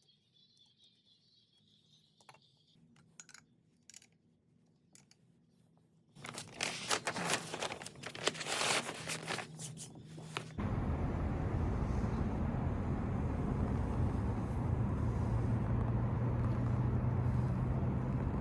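A few light handling clicks, then about four seconds of harsh, rasping scraping. After that, an abrupt change to the steady running noise of the Atlas 2502 half-horsepower AC motor, with a low hum.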